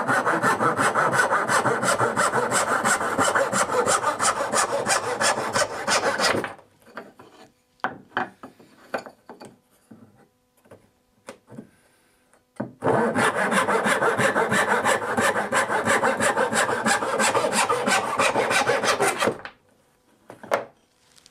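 Western-style dovetail saw cutting through a turned wooden stretcher on a bench hook in quick, even strokes for about six seconds. A few light knocks and taps follow as the piece is shifted. A second cut of about the same length then runs to near the end.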